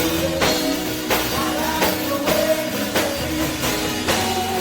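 Live gospel praise band music: a drum kit keeping a steady beat under sustained instrumental chords.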